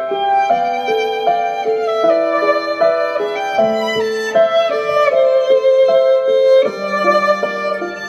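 Violin and contrabass duo playing a pop-style tune live: the violin carries a flowing melody of held notes over lower accompanying notes.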